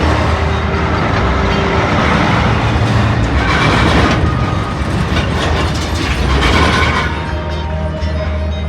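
A heavy truck passing over a bridge, its noise swelling around three to four seconds in and again near six and a half seconds, with background music underneath.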